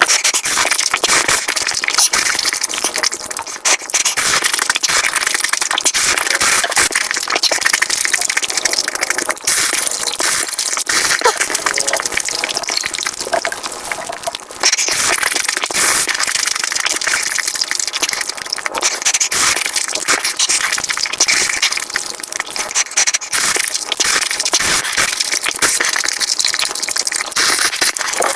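Mukbang eating sounds played at five times speed: chewing and crunching blurred into a dense, fast crackle and hiss, with a short break about halfway.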